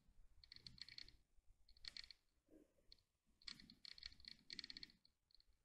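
Near silence with faint, scattered clicking in short clusters.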